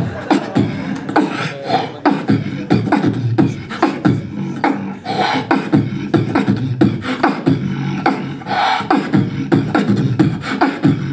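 Human beatboxing into a handheld microphone: rapid mouth-made kick and snare hits in a steady rhythm over a deep, pitched vocal bass line.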